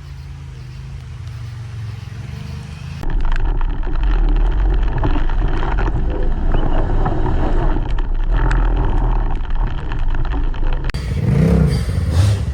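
Vehicle engines running. Quieter at first, then after an abrupt cut a loud low rumble with rattling, and a short rev that rises and falls near the end.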